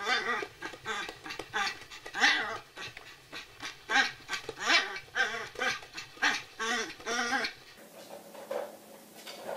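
Yorkshire terrier giving a rapid run of short, high yips and whines, about three a second, that stop abruptly about eight seconds in.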